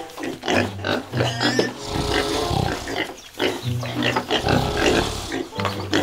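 Pigs grunting and oinking again and again over background music with a repeating bass line.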